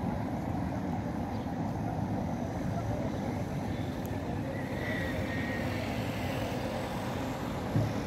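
Steady low rumble of outdoor background noise, with a brief low thump near the end.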